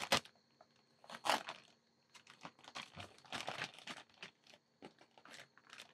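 Clear plastic grow bag crinkling as scissors cut down its side, in short irregular snips and rustles.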